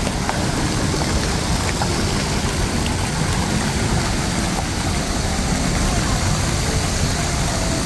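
Busy street ambience: a steady rumble of passing traffic with indistinct voices of people nearby.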